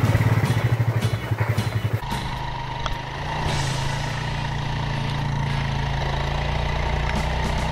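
ATV engine running, pulsing for the first two seconds, then changing abruptly to a steadier low drone.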